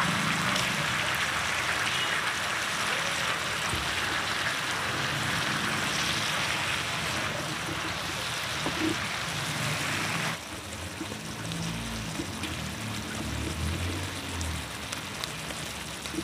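Wok of freshwater mussels (kijing) and fresh greens sizzling steadily over a wood fire. The hiss stops abruptly about ten seconds in, leaving a quieter low background.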